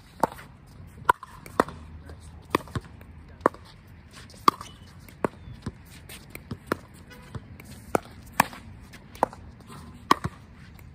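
Pickleball rally: sharp pops of paddles striking a hard plastic outdoor ball, mixed with the ball's bounces on the court, coming irregularly about once every half second to second, over a dozen in all.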